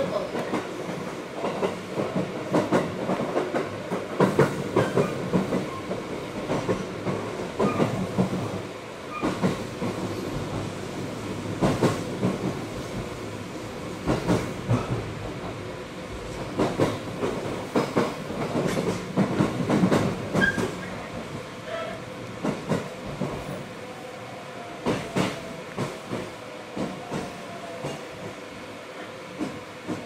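Aichi Loop Railway 2000-series electric train heard from inside the car while running: steady rumble with wheels clacking over rail joints. In the last several seconds the noise eases and the clacks thin out as the train slows into a station.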